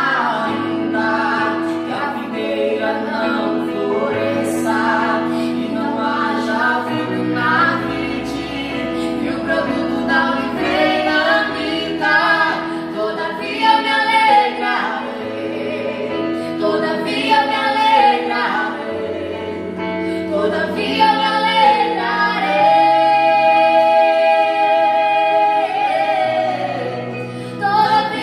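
A man and a girl singing a gospel song together, accompanied by chords on a Yamaha electronic keyboard. There is a long held sung note about two-thirds of the way through.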